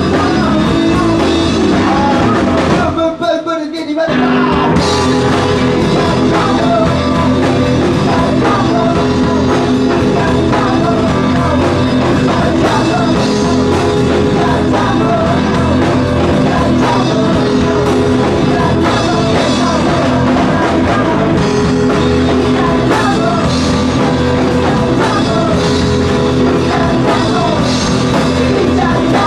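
Live rock band playing: distorted electric guitar, bass and drum kit with sung vocals, loud and dense. The band cuts out for about a second roughly three seconds in, then comes back in.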